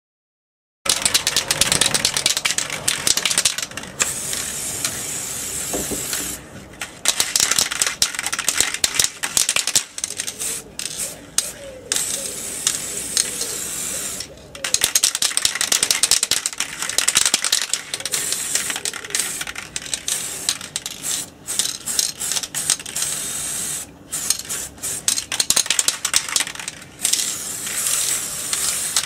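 Aerosol spray-paint can hissing in repeated bursts with brief breaks, along with metallic clicking and rattling.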